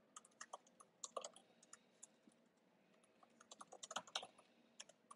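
Faint keystrokes on a computer keyboard typing a short sentence: irregular runs of quick clicks, busiest about a second in and again around four seconds in.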